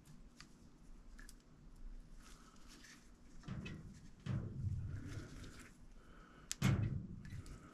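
Handling noise as a bleed syringe is threaded into the bleed port of a SRAM Code hydraulic brake lever: faint light clicks, then three dull thumps in the second half, the loudest with a sharp click about two-thirds of the way through.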